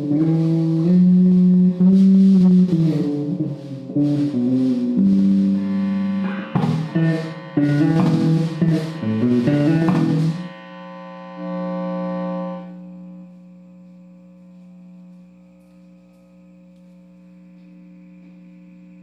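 Electric guitar played through a DI box: a run of plucked notes and chords for about ten seconds, then the playing stops and a steady electrical hum remains.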